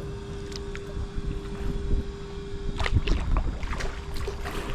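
Kayak paddle strokes splashing in choppy river water, with wind buffeting the microphone. A steady hum runs underneath throughout.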